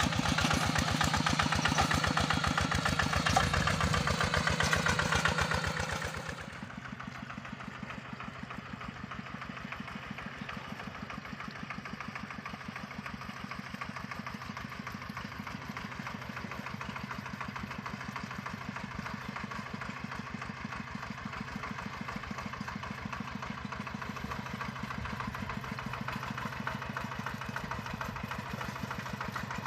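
A Kubota diesel engine with a modified exhaust sound, on a tractor working a rice paddy, running with an even, rapid beat. It is loud for about the first six seconds, then drops off suddenly and runs steadily at a lower level, growing slowly louder toward the end.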